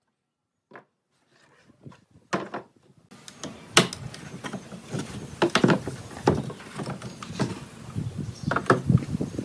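Irregular sharp knocks and clicks, a few of them loud, that start about two seconds in over a steady background noise, as of wood or tools being handled.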